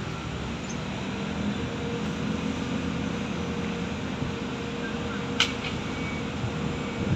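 Steady drone of heavy diesel machinery, a mobile crane lowering a pontoon-tracked amphibious excavator on its hoist. One sharp click about five and a half seconds in.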